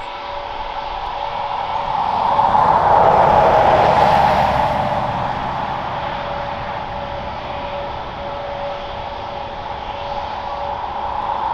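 Airbus A320neo's Pratt & Whitney PW1100G geared turbofan engines running under power as the airliner passes, swelling to its loudest about three seconds in with the pitch falling as it goes by. The noise then eases off and grows again near the end.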